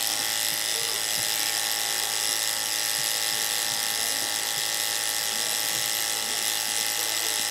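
Small 12 V DC diaphragm water pump running steadily under battery power, pumping water through a plastic tube.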